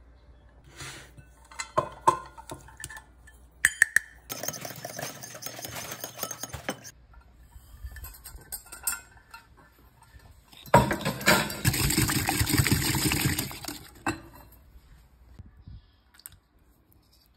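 A steel measuring cup clinks against a glass mixing bowl a few times. Then a small wire whisk beats yogurt-and-oil batter in the bowl with fast scraping strokes, in two spells of about three seconds. The second spell, after the sugar goes in, is the louder.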